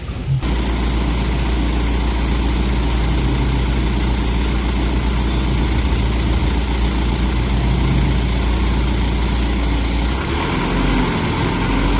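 Engine of a street-light maintenance truck running steadily with a low rumble, which dips briefly near the end.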